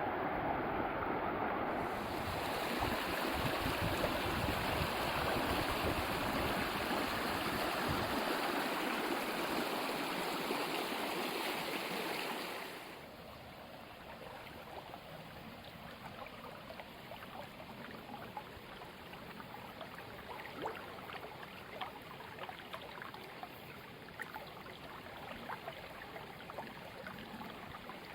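Stream water rushing steadily, then about halfway through it cuts to a quieter trickle with scattered small drips and ticks.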